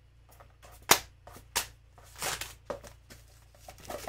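Plastic shrink wrap crackling and snapping as it is pulled off a hardcover book. There are two sharp snaps about a second in, half a second apart, then a rustling crackle and a few lighter clicks.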